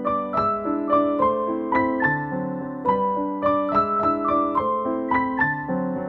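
Background music played on a keyboard, a steady run of piano-like notes and chords about three a second.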